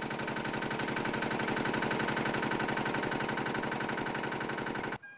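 Engine of a heavy logging machine running steadily with an even throb. It grows a little louder over the first couple of seconds, then cuts off suddenly near the end.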